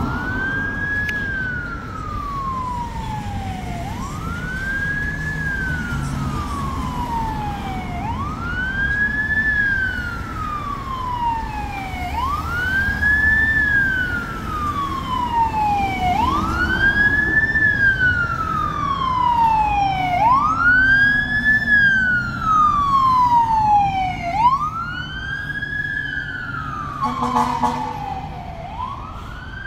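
Fire truck siren wailing in repeated cycles, each a quick rise followed by a slow fall, about every four seconds, over a low engine and road rumble. A short lower-pitched burst comes near the end.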